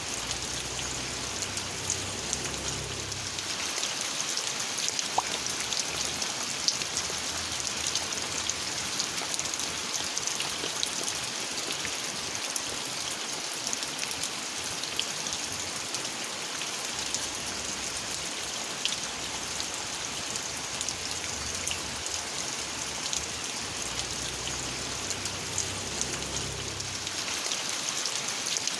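Steady rain falling: an even hiss with many small, separate drop ticks scattered through it.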